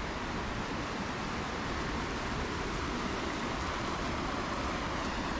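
Shallow mountain stream running over stones and pebbles: a steady rush of flowing water.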